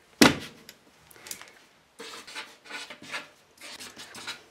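A sharp knock near the start, then a white paint marker scratching across a card in a few short strokes as a word is written by hand.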